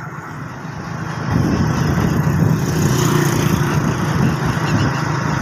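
Small motorcycle engine running as it rides along a road; the engine grows louder about a second and a half in and holds there.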